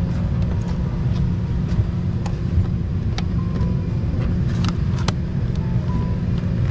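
Steady low rumble and hum in an airliner cabin on the ground, with several sharp clicks and knocks in the middle as the seatback tray table is unlatched and lowered.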